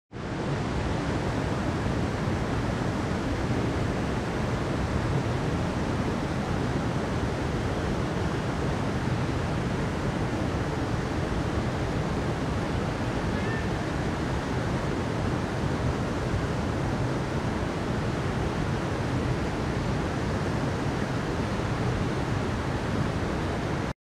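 Steady rushing water, an even unbroken wash of noise with no separate wave breaks, beginning abruptly.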